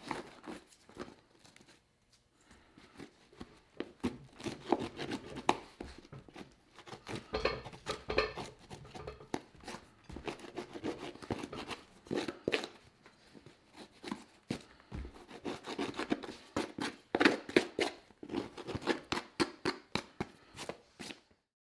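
Hand work on a leather boot: an irregular run of sharp cutting, scraping and tearing strokes, coming in uneven clusters.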